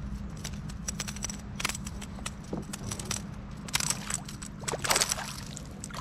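Water lapping and sloshing against a fishing kayak's hull, with scattered light clicks and knocks and a steady low rumble of wind.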